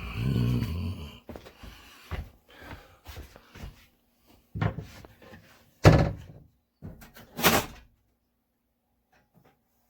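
Knocks and clunks of a screwdriver and hands working at the wire terminals of an electric water heater's heating element, with the metal access panel around them. Several separate sharp knocks, the loudest about six seconds in, then it goes quiet.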